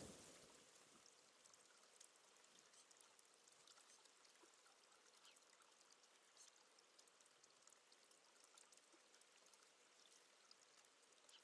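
Very faint water sound: a steady trickle with small scattered splashes from the water of a bird bath.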